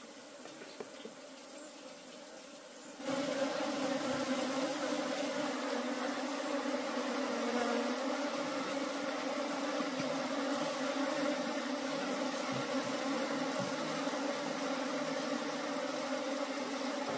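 Mass of honeybees buzzing, loud and steady. The buzz starts suddenly about three seconds in, after a quiet stretch with a few faint clicks.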